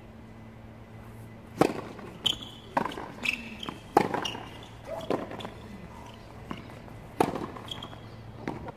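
Tennis rally on a hard court: a string of sharp racket-on-ball strikes and ball bounces, about seven in all, irregularly spaced, with a faint steady low hum underneath.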